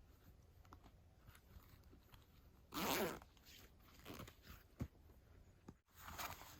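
A short rasp about three seconds in, among faint scattered rustles and clicks.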